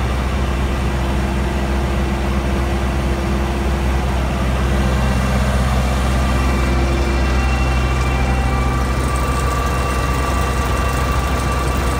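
Steady low drone of diesel farm machinery: a silage packing machine working chopped alfalfa, with engines running. The mix of tones shifts slightly about five seconds in.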